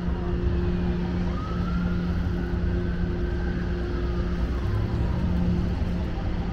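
An emergency vehicle siren wailing, its pitch slowly rising, holding and falling, over a steady low hum and rumble.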